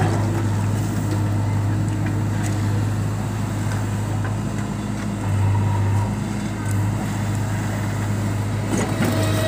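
JCB backhoe loader's diesel engine running steadily while the backhoe arm digs, the engine note swelling briefly about five seconds in.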